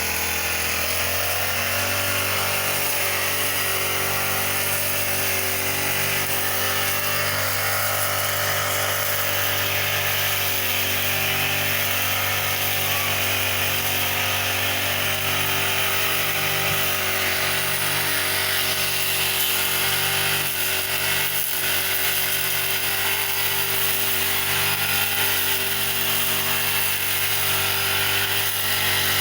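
Petrol brush cutter (grass-cutting machine) running at high speed, its pitch rising in the first second and then holding steady.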